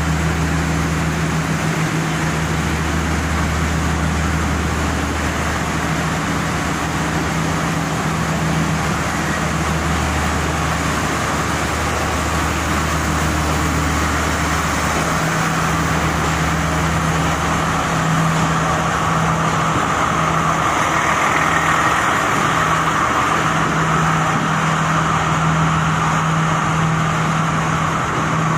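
Sri Lankan diesel multiple-unit train idling at a standstill: a steady low engine hum over a loud mechanical whir. The whir grows louder in the second half, while the deepest part of the hum fades out about halfway through.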